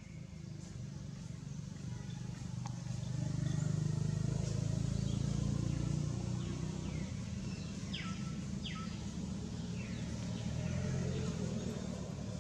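Outdoor ambience dominated by a steady low rumble like distant motor traffic, swelling for a few seconds and easing off. A few short high calls falling in pitch sound over it, two of them close together about two thirds of the way through.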